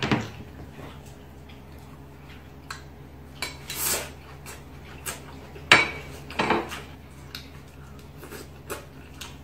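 Eating utensils clicking and scraping against a small plate, with a few louder clatters of dishes.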